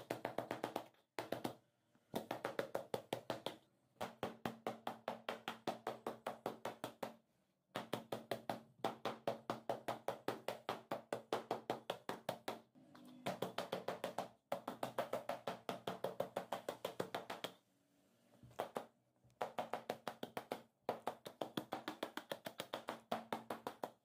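A metal pot lid beaten flat against the back of a woven rug, a fast patter of dull taps several times a second. The taps come in runs of a few seconds with short pauses between. This beating knocks dust and crumbs out of the rug.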